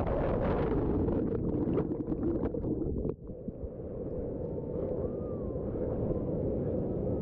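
Whitewater rapids churning around a waterproof action camera at the waterline, a muffled, low rushing. There is a sharp dip about three seconds in as the camera comes out of the water, and the rushing is steadier after it.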